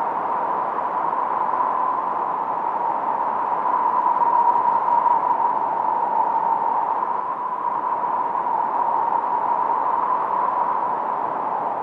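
Minimoog synthesizer's noise generator shaped by its filter into a steady hiss centred in the middle register, the highs cut off, with a faint whistling tone at its centre. It swells slightly about four seconds in.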